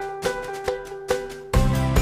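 Background music: light plucked-string notes on a regular beat, with fuller music and a bass line coming in about a second and a half in.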